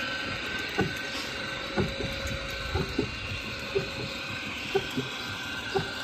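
Belt-driven wooden barrel butter churn turning on its iron stand, with a steady running sound from the line-shaft drive and a short knock about once a second as it turns.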